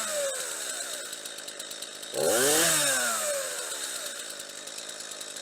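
Stihl MS 231 two-stroke chainsaw running at idle, with one throttle blip about two seconds in: the engine revs up quickly and falls back to idle over about a second.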